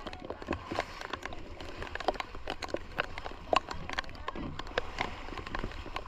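Rain falling, scattered drops striking with irregular sharp taps.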